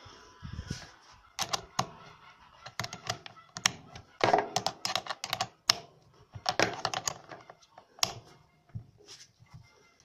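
Small open-end wrench clicking and clinking against the bolt of a riding mower battery's negative terminal as the ground cable is tightened back on, in an irregular run of sharp metal ticks.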